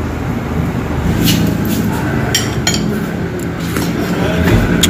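A metal spoon clinking against a ceramic soup bowl a few times, sharp short clinks, over a steady rumble of road traffic.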